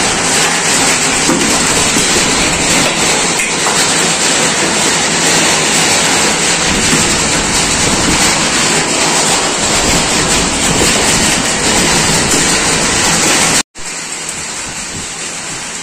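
Hail and heavy rain pelting a tiled balcony floor and wall in a dense, loud, steady clatter. About thirteen and a half seconds in it cuts off abruptly, then comes back as a quieter rush of falling rain and hail.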